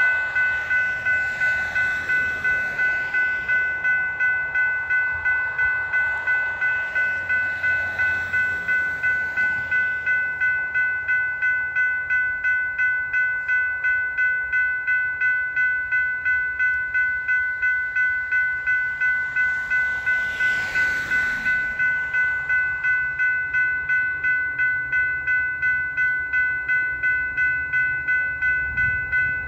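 Railroad grade-crossing warning bell ringing in a steady, even rhythm of about two strokes a second, switching on suddenly: the crossing signals activating for an approaching train.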